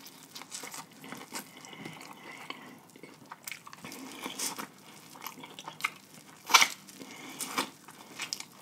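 A person biting and chewing food close to the microphone: a scatter of small wet smacks and crunchy clicks, with the loudest bite about six and a half seconds in.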